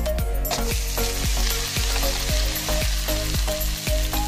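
Chopped amaranth greens dropped into hot oil with garlic and dried red chillies, starting a loud, steady sizzle about half a second in. Background music with a regular beat plays underneath.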